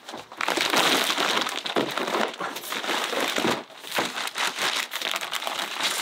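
Cement sacks crinkling and rustling as they are handled and unloaded from a porter's A-frame back carrier (jige), with one sack torn.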